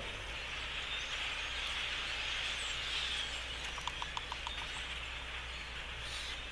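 A huge flock of birds calling all at once: a steady, dense chatter. About four seconds in there is a short run of quick clicking notes.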